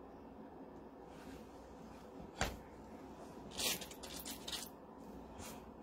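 A single sharp knock about two and a half seconds in, then short bursts of rustling and handling noise as craft supplies are moved about on a table.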